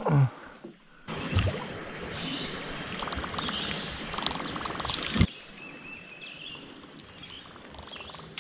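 Whopper Plopper topwater lure being reeled across the water surface, its spinning tail churning and plopping, from about a second in until a sharp knock about five seconds in. After that only softer water sounds.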